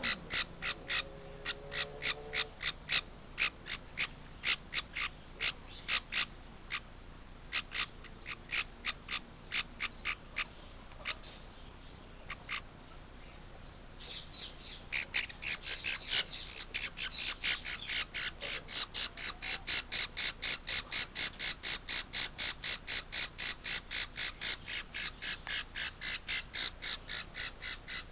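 Baby parrot chick squawking over and over in short, harsh calls, about two to three a second. Past the middle the calls mostly stop for a few seconds, then resume faster and more steadily.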